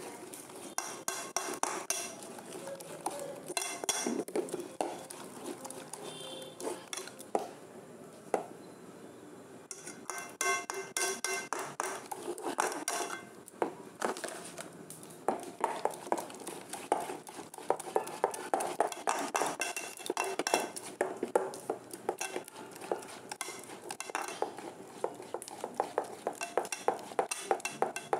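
Thick masoor-dal batter being beaten in a metal bowl: a steady run of quick wet clicks and scrapes against the bowl, with metallic clinks now and then and a short lull about eight seconds in.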